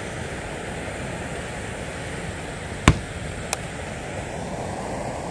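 Steady rush of wind on the microphone by open water, with a sharp click about three seconds in and a fainter click about half a second later.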